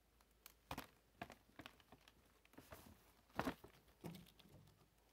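Faint handling sounds of a paper gift bag and a plastic letter-bead bracelet: a few scattered light rustles and clicks, the loudest about three-quarters of a second in and again around three and a half seconds in.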